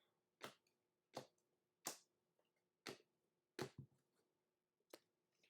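Panini Prizm trading cards being flipped through one at a time, each card giving a short, crisp snap. There are about seven snaps at an irregular pace, two of them close together about two-thirds of the way in.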